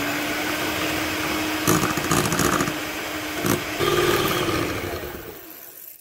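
Electric hand mixer running at speed, its beaters whisking oil into beaten eggs and sugar for a cake batter in a glass bowl. There are a couple of sharp knocks along the way. Near the end the motor's pitch drops and it winds down to a stop.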